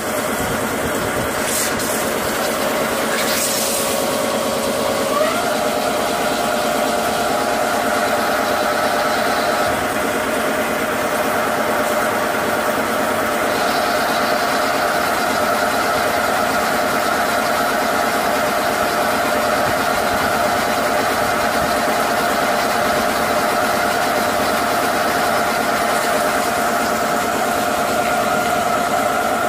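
CNC lathe turning a round metal mould blank under coolant spray: the spindle and cut run steadily with a hum over a hiss, and the hum steps up in pitch about five seconds in.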